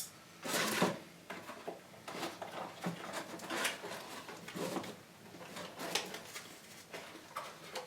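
Dull scissors snipping and working at plastic packaging, with irregular clicks and rustles of the packaging being handled. The loudest burst comes about half a second in.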